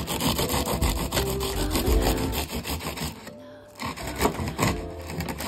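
A knife sawing through a freshly baked ham-and-cheese croissant, its crisp, flaky crust crackling with each stroke. There is a brief pause a little past the middle, then more crackling.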